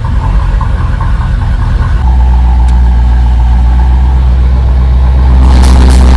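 C4 Corvette's L98 5.7-litre V8 running just after starting, uneven for about the first two seconds, then settling into a steady idle.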